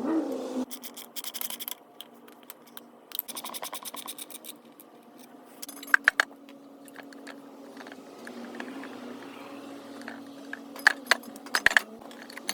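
Hand tools and loose metal engine parts clinking and scraping during a small-engine teardown, with a few sharp metallic clicks about six seconds in and another cluster near the end.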